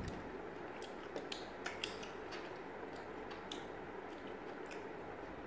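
Light, scattered clicks and ticks of eating at a table, over a faint steady room background.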